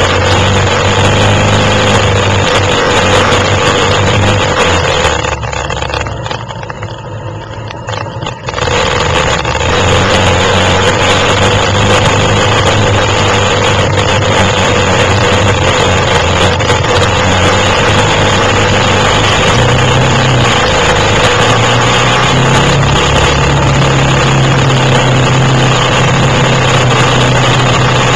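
Quad (ATV) engines running under throttle off-road, loud and steady. The sound drops back for a few seconds about five seconds in, then returns to full level.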